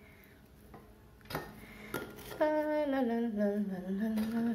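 A woman humming a slow tune without words, starting about halfway through with a falling note and then holding steady. Just before it come a couple of light knocks of dishes.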